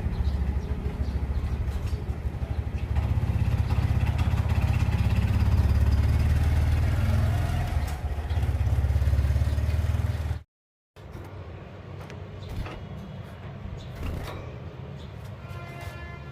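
An engine running steadily at a low, even pitch for about ten seconds, then stopping abruptly. After that, a quieter stretch with light clicks and a few short, faint bird chirps near the end.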